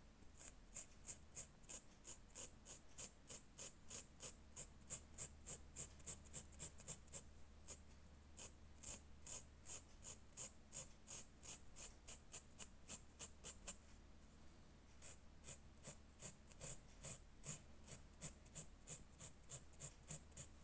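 Textile marker tip scratching across printed fabric in quick, short colouring-in strokes, about three a second, with a pause of about a second around two-thirds of the way through.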